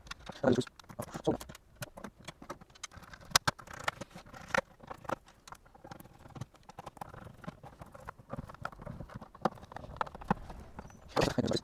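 Irregular small clicks and taps of hard plastic parts being handled and fitted together as a small electronic toy tablet is reassembled.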